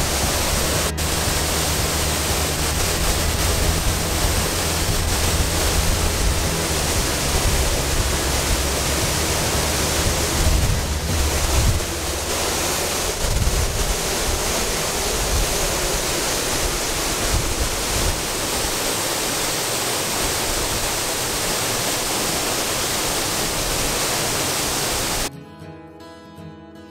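Steady rushing roar of a waterfall heard from inside a rock cave beside it, loudest and deepest in the first half. It cuts off abruptly near the end, replaced by acoustic guitar music.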